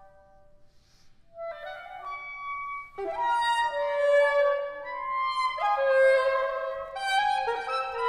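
Contemporary chamber music led by a soprano saxophone. After a near-silent pause, a held wind line comes back about a second and a half in. From about three seconds in, other sustained instrumental tones overlap it.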